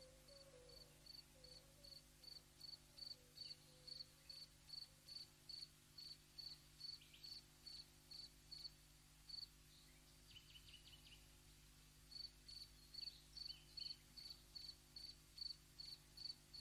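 A cricket chirping steadily at about three chirps a second, with a short break about ten seconds in where fainter, lower chirps are heard.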